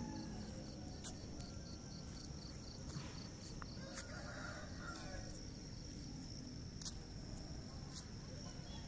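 Outdoor ambience of insects chirping in a steady, evenly pulsed high trill over a low, constant rumble, with a few short faint clicks.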